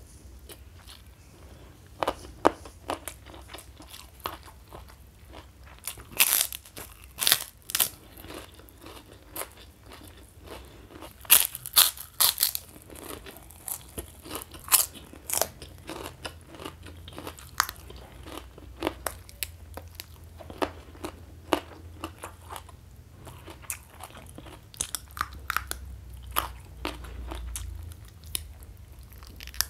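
Close-miked eating: crisp crunches from biting pink kerupuk crackers, with chewing in between. The loudest crunches come in clusters about six seconds in and again around eleven to thirteen seconds.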